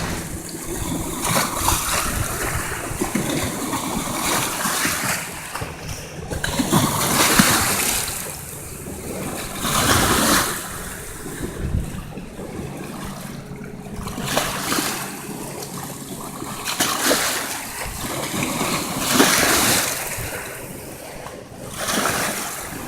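Small lake waves splashing over rocks, surging in a new splash every two to three seconds.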